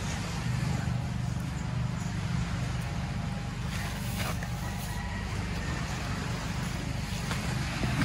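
Steady low rumble of outdoor beach ambience, with a few faint short rustles or taps about four seconds in.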